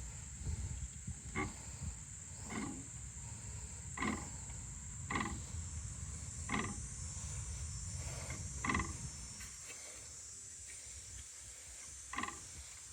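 A short buzzy rattle repeating irregularly, roughly every one to two seconds, over a steady low rumble and a faint high whine.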